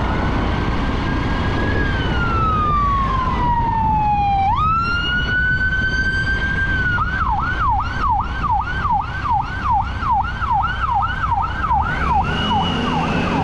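Police siren of an approaching California Highway Patrol unit: a slow wail that falls and then rises, switching about halfway through to a fast yelp of roughly three cycles a second. Steady low road and wind noise runs beneath it.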